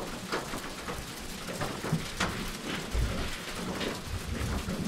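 Steady rain with scattered drops pattering, and a low rumble of thunder about three seconds in.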